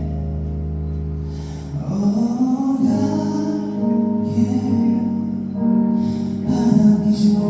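A ballad sung by a solo singer over an instrumental accompaniment; the accompaniment plays alone at first and the voice comes in about two seconds in.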